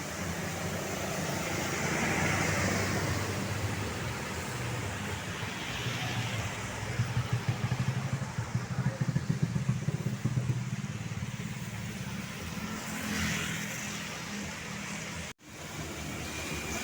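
Roadside traffic: vehicle engines running with vehicles passing, and a stretch of rapid engine pulsing in the middle. The sound cuts out abruptly for a moment near the end. No horn is heard.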